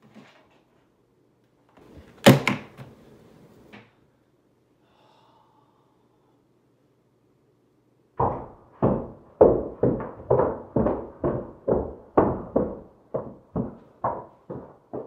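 One loud bang about two seconds in, then, from about eight seconds, a long run of rapid, insistent knocks on a door, about three a second.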